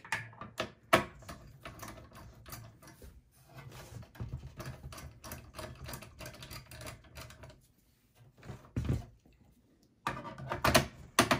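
Hand screwdriver loosening the screws of a desktop PC's CPU cooler heatsink: a run of small metallic clicks and ticks, with a few sharper knocks about a second in and near the end.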